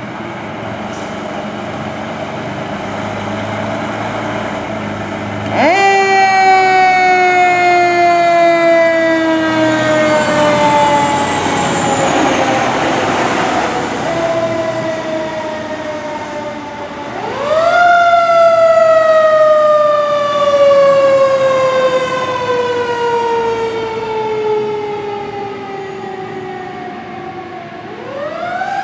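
Mechanical siren on a 2017 Pierce Velocity tower ladder fire truck, running on an emergency response. It winds up sharply about five seconds in and coasts down in a long falling wail. It winds up again just past halfway and coasts down slowly, then rises once more at the very end. Before the first wind-up, the truck's diesel engine runs, growing louder as it pulls out.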